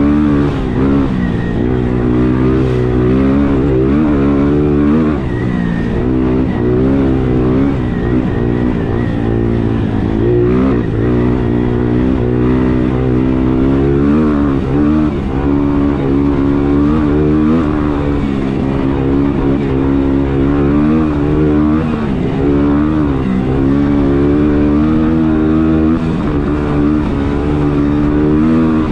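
ATV engine running under way, its revs rising and falling over and over as the throttle is worked.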